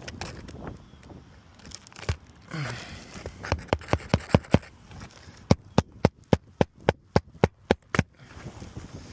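Hammer driving roofing nails into an asphalt shingle: sharp strikes in a quick run of about six in the middle, then a steady run of about nine at roughly three a second.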